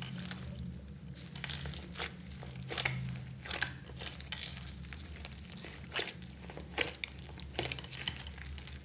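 Hands kneading and squeezing clear slime mixed with foam beads and small plastic pieces, giving irregular sticky pops and crackles, a few each second.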